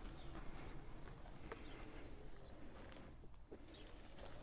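Faint outdoor background with a few short, high bird chirps scattered through it.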